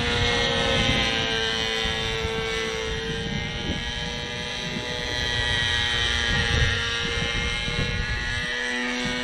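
Hirobo Shuttle radio-controlled helicopter's two-stroke glow engine and rotor droning overhead, the pitch wandering slightly as the revs rise and fall: the engine runs sluggishly because its carburettor mixture won't settle between too rich and too lean. Wind buffets the microphone.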